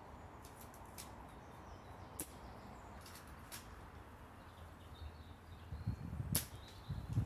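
A Novritsch SSG10 airsoft sniper rifle fires once, about six seconds in: a single sharp crack heard from about ten steps downrange. A few faint ticks come before it, and a low rumble near the end.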